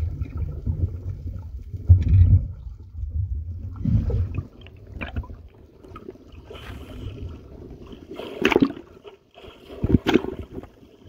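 Seawater heard through a phone's microphone: a muffled low rumble and gurgle while the phone is underwater, then water sloshing and splashing against the microphone at the surface, with sharp splashes about eight and a half and ten seconds in.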